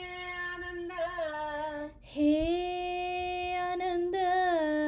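A female voice singing a devotional Krishna bhajan, drawing out long held notes: one note in the first two seconds, then a second note held steady for nearly three seconds.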